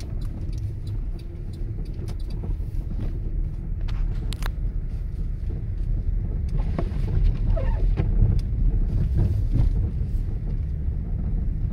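Car driving, heard from inside the cabin: a steady low road and engine rumble with scattered small clicks and knocks.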